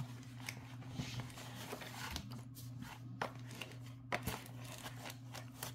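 Scattered small clicks and soft rustling of packaging being handled, over a steady low hum.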